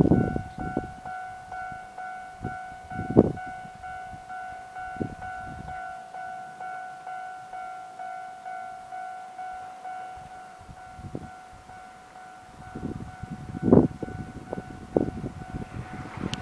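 Japanese level-crossing warning bell ringing its steady electronic 'kan-kan' at about two strikes a second, signalling that a train is approaching. A low rumble comes and goes underneath, strongest near the end.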